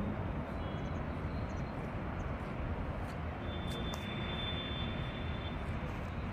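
Seaside ambience: a steady rushing noise of sea and wind, heavy in the low rumble.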